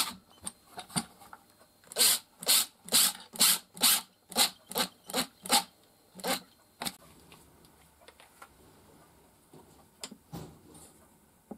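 Makita cordless driver run in short trigger bursts, about two a second, its bit working into the wood of a clamped joint. The bursts stop about seven seconds in, leaving only faint handling sounds and one small knock near the end.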